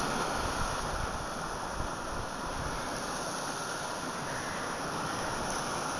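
Wind rushing and buffeting over a phone microphone, with the steady wash of the sea below.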